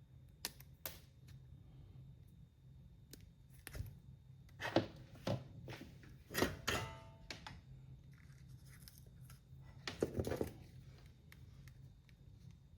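Small workbench handling sounds: scattered light clicks and a few short rasping, snipping noises of tools and parts being worked by hand, over a steady low hum.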